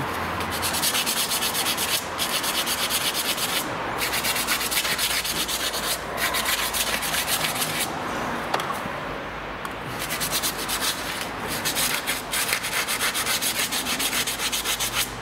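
Emery cloth rubbed in quick back-and-forth strokes over the metal outer CV joint and ABS tone ring of a Land Rover Discovery 3 front driveshaft, cleaning off dried grease before reassembly. The scratching eases for about two seconds midway.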